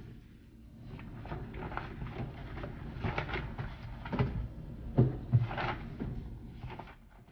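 Paper files and charts being flipped and handled on a desk: rustling pages with a run of knocks and thumps as folders are moved, the loudest thumps about four and five seconds in.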